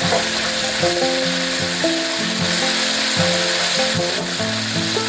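Food frying in hot oil, a steady sizzling hiss, under background music of sustained notes.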